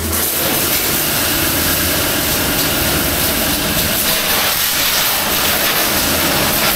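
A pressure washer is running: the high-pressure water jet hisses steadily as it sprays a motorcycle, with the low hum of the washer's pump beneath it.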